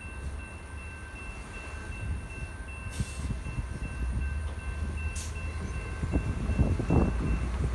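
Railroad grade-crossing warning bell ringing in a steady, rapid dinging as the crossing gates rise, stopping near the end once the gates are up. Two short hisses come about three and five seconds in, and cars rumble over the crossing near the end.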